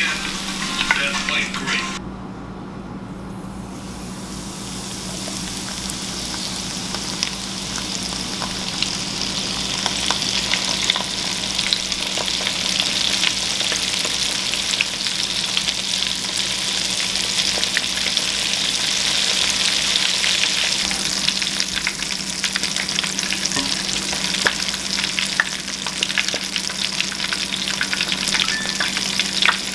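Coated crappie pieces deep-frying in hot oil in a cast iron skillet: a steady sizzle with dense crackling. It drops back about two seconds in, then slowly grows louder.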